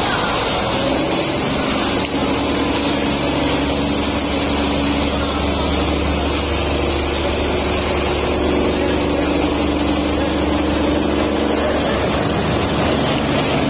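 Electric-motor-driven corn stalk chopper running under load, its rotor shredding corn stalks into fine pieces. A steady mechanical noise with a high whine over it.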